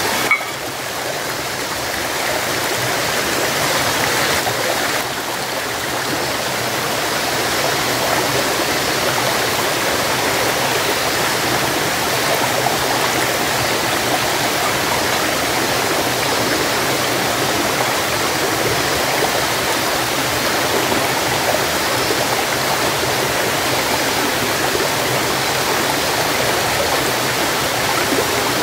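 A stream's running water rushing steadily.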